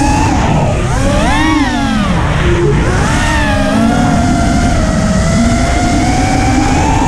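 FPV racing quadcopter's motors and propellers whining, the pitch swooping up and down with the throttle about a second and a half in and again around three seconds, then climbing slowly. Wind rushes over the onboard camera's microphone underneath.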